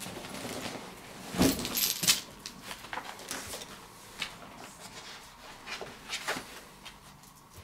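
Handling noises: a thump about one and a half seconds in, then rustling and a few light knocks as people shift on the floor and handle papers and a binder.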